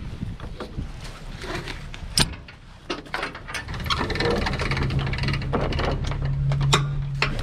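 Footsteps on gravel and clunks from handling a boat trailer, with a sharp click about two seconds in. A low steady hum joins about halfway through.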